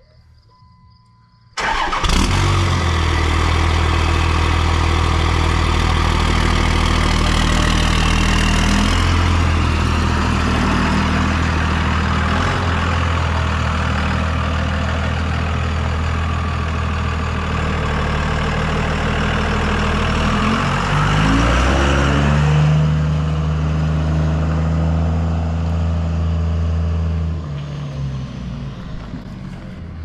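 Pickup truck engine starting abruptly and then running steadily. About twenty seconds later it revs up and settles at a higher steady speed, then dies away near the end.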